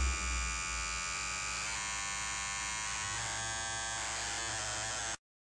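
Steady electric buzz with several sustained droning tones, left hanging after the final chord of a loud punk-rock track. It cuts off abruptly near the end into silence.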